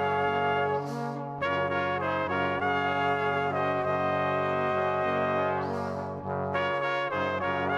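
Background music: held chords that change every second or two.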